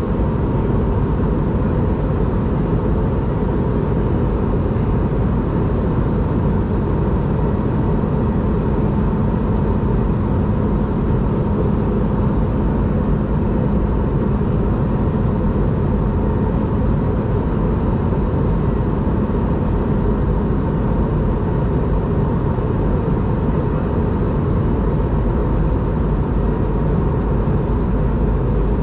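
Steady cabin noise of an Airbus A320 airliner in flight: engine and airflow noise, a deep even rush with a faint steady high whine over it.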